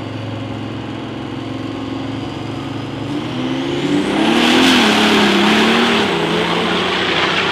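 Diesel drag-race pickup trucks running at the line. About three seconds in, one engine revs up, its pitch rising and then falling, and from about four seconds in there is a loud rush of exhaust noise.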